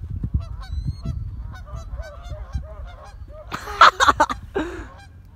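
Geese honking over and over, with a loud burst of harsh honks about three and a half seconds in.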